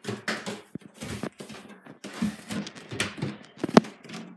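Footsteps going down a flight of stairs: a quick, uneven run of thumps mixed with rustling from the handheld phone, and one sharp knock near the end.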